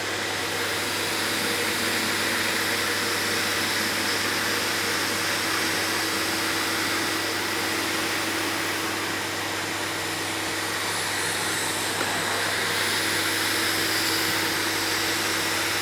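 Innova AS 30 wet and dry vacuum cleaner running steadily on its 1000 W motor: an even rush of air with a faint steady whine through it.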